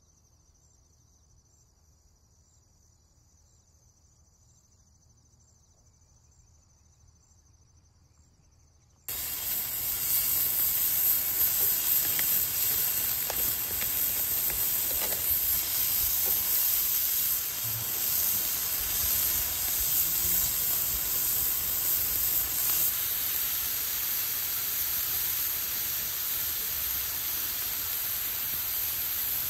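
Near silence for about nine seconds, then slices of meat sizzling loudly on a hot Iwatani portable gas grill plate, a steady crackling hiss that starts suddenly and keeps on.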